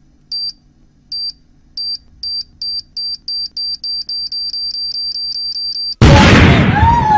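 Bomb countdown beeps, high-pitched and speeding up from less than one a second to about four a second, then a loud explosion about six seconds in.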